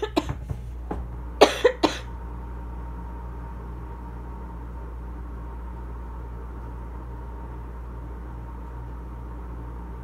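Asthma cough: a few small coughs, then a quick run of three harsh coughs about a second and a half in. A steady low hum continues underneath.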